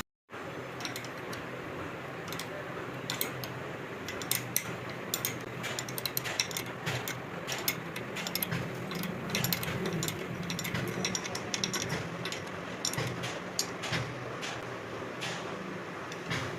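Hand tools working on metal: irregular sharp clicks and clinks, like a ratchet wrench and parts being handled, over a steady low hum.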